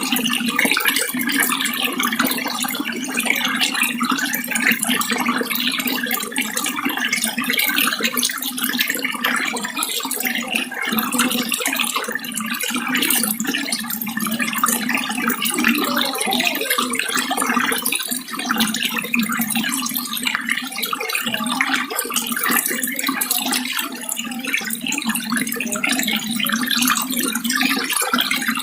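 Running water, splashing steadily without a break.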